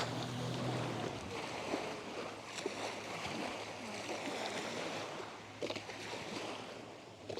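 Small waves washing at the shore of a beach, an even wash of water noise with a faint steady low hum underneath.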